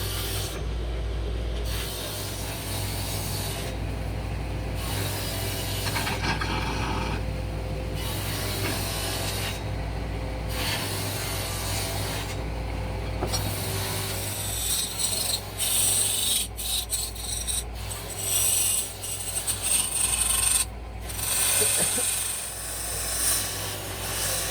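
A hand tool scraping and rasping against wood in repeated strokes, over a steady low hum. The strokes turn louder and harsher about halfway through.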